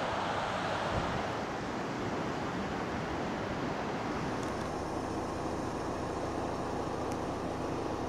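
Wind rushing on the microphone gives way, about four seconds in, to a steady low vehicle drone with a constant hum.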